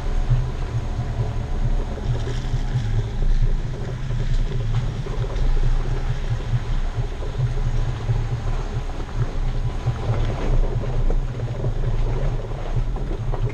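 Jeep Wrangler driving slowly along a rocky dirt trail: a steady low engine rumble with the tyres crunching over gravel and a few sharp stone clicks. It is heard from a camera mounted outside by the front wheel, with some wind noise on the microphone.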